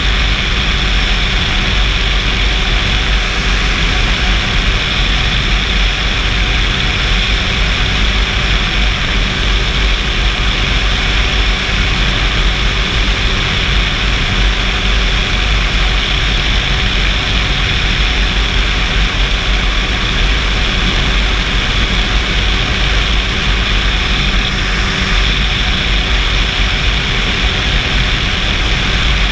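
Flex-wing microlight trike in level flight: its engine and pusher propeller running steadily at cruise, mixed with a constant rush of wind across the open cockpit.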